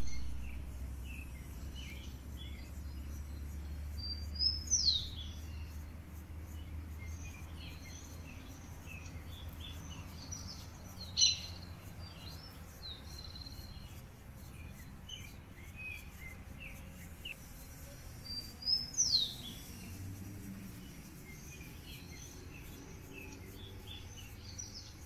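Small birds chirping and calling in trees, with one louder short call sweeping down in pitch three times, about seven seconds apart. A low steady rumble underlies the first half.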